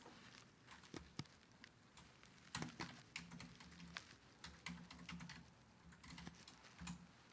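Faint, irregular clicks and taps, several a second, with a low hum that comes and goes in the second half.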